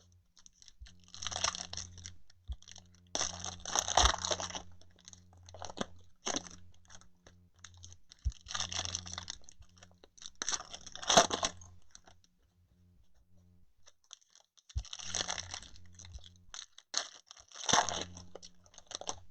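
Trading-card mega boxes and their pack wrappers being torn and crinkled open by hand, in irregular bursts of a second or two.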